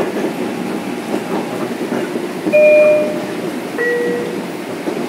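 Onboard two-note chime of a Metro-North M7 electric multiple unit, a higher tone followed by a lower one, each under a second long, heard over the steady noise inside the car.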